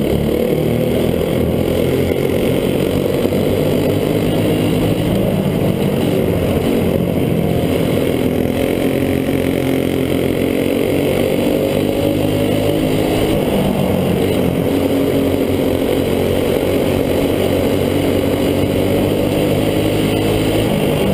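Racing go-kart engine heard onboard during a dirt-track heat race, running hard at high revs, its pitch rising and falling gently as the throttle changes.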